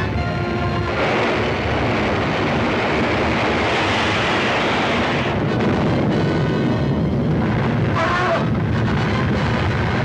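Dramatic orchestral serial score over the loud, continuous rumble of a volcanic eruption effect. About a second in, the rumble swells and covers the music for several seconds; the music then comes back through it.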